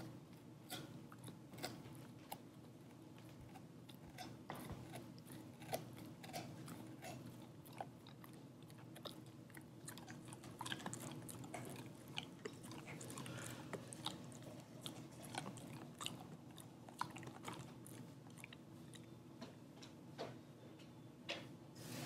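Dog gnawing on a rawhide strip: faint, irregular clicks of teeth working the hide, with short pauses.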